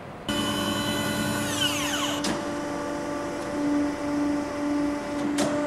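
CNC FE 332 band saw running under power: a steady mechanical hum from its motors, which cuts in suddenly near the start. A falling whine comes about one and a half to two seconds in, and single sharp clicks come about two seconds in and near the end.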